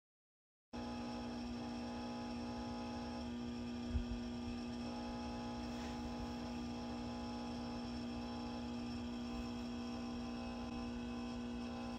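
A steady, unchanging hum of several held tones that starts abruptly, with a single soft low thump about four seconds in.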